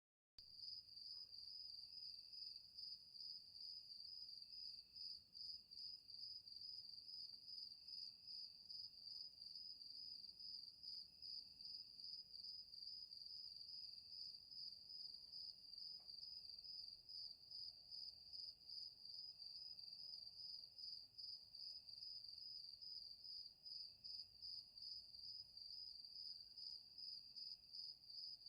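Crickets chirping in a steady, fast-pulsing high trill, with a fainter, lower chirp from another insect repeating about every second and a half.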